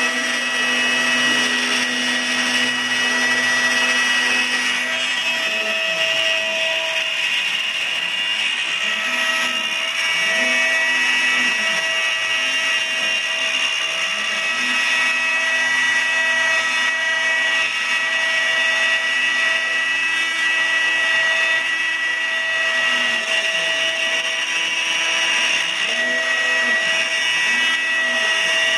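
A router motor on a CNC router table runs with a steady high whine while it cuts clear plexiglass. Under it, the stepper motors driving the axes give a lower tone that rises and falls over and over as the machine moves along the cut path, starting about five seconds in.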